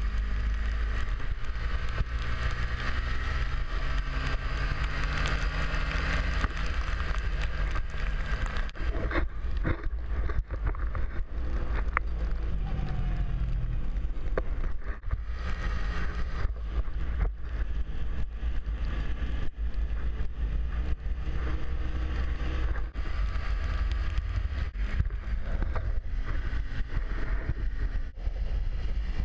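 Snowmobile engine running under way, its pitch rising and falling with the throttle, with wind buffeting the microphone and a few sharp knocks.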